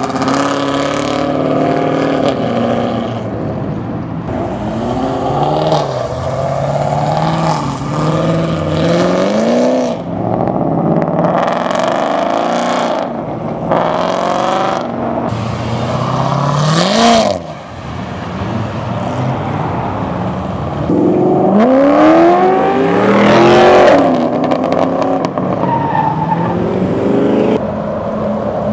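Performance cars accelerating hard one after another, exhausts loud, engine pitch sweeping up through the gears again and again. About two-thirds of the way in one engine revs sharply to a peak and cuts off, and a little later another makes a long, loud rising pull.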